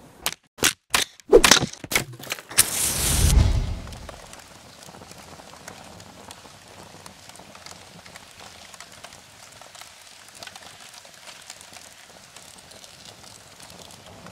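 A quick run of sharp cracks and then a louder rushing burst in the first few seconds, followed by a campfire crackling softly with scattered small pops.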